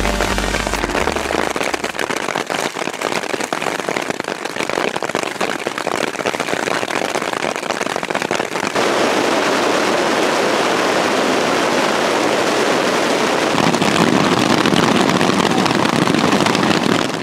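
Hail pelting a tent: a loud, dense patter of hard little impacts on the fabric, growing louder about nine seconds in.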